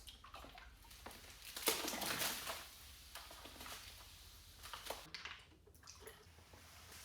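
Faint liquid splashing and pouring in irregular bursts, loudest about two seconds in.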